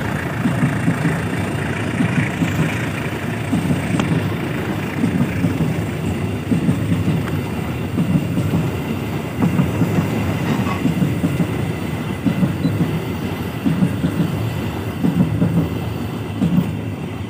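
A long string of new KKBW coal hopper wagons rolling past at close range. Their wheels clatter over the rail joints in a repeating clickety-clack over a steady low rumble.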